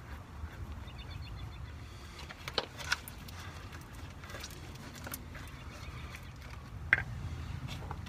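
A few sharp clicks and small taps of hands handling the terminals and nut on a truck's battery switch: two close together about two and a half seconds in and a louder one near the end, over a low steady rumble.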